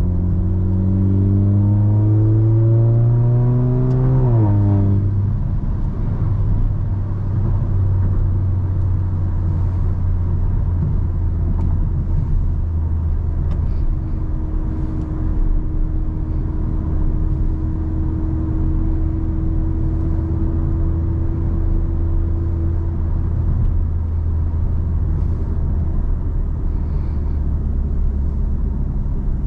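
Car engine pulling up in pitch under acceleration for about four seconds, then dropping sharply as it shifts up a gear, followed by a steady low engine rumble and road noise while cruising.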